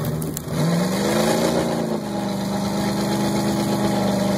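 Vehicle engine running, revving up and back down between about half a second and two seconds in, then holding a steady pitch. A few faint clicks at the very start.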